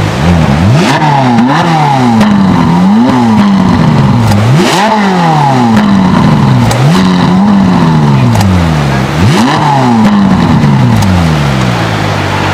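Ferrari 458 Spider's 4.5-litre V8 revved hard while stationary: a string of quick throttle blips, each rising sharply in pitch and falling back slowly, settling to a steadier idle near the end.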